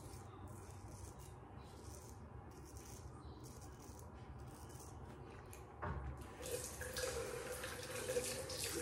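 Short repeated strokes of an Inoue Tosuke kamisori straight razor scraping through lathered stubble, a faint rasp about twice a second. About six seconds in, a tap opens and water runs into the sink.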